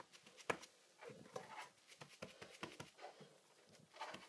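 Faint crunching and patting of wet craft snow being pressed by hand into a silicone pop-it mould: a run of small scattered crackles and clicks, with one sharper click about half a second in.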